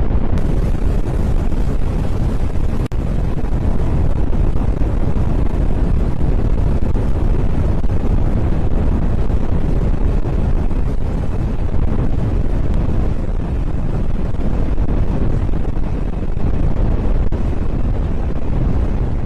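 Strong storm wind blowing hard across the microphone, a loud, steady rushing noise heaviest in the low end.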